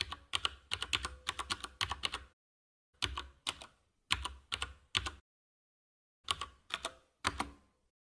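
Computer keyboard typing, quick key clicks in three runs with short pauses between.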